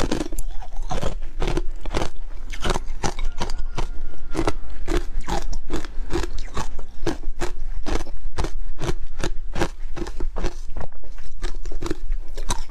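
Hard ice dusted with matcha powder being bitten and chewed: a dense, irregular run of sharp crunches, several each second.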